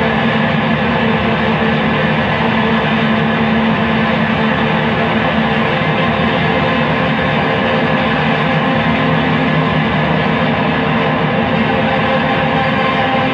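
Loud, steady noise drone of distorted guitar effects, a dense wash with several sustained tones held through it, from an effects pedalboard played through a Fender Deluxe combo amplifier.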